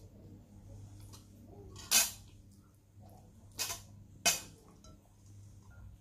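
Spoon and ceramic dishes clinking at a meal table, three sharp clinks with the loudest about two seconds in and two more a little after the middle, over a steady low hum.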